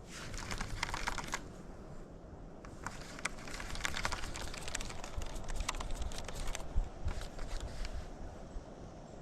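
Shimano Curado 71 baitcasting reel clicking in quick, irregular runs while a hooked trout is being fought and reeled in.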